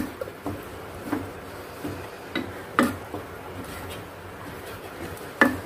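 Wooden spatula stirring a thick gravy in a nonstick saucepan, knocking and scraping against the pot in irregular taps, over a low steady hum.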